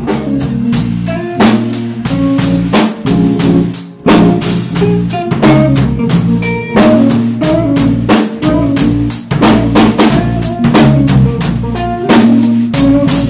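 A live band playing instrumental jazz-funk: a drum kit with busy snare and bass-drum hits, under electric bass and electric guitar lines.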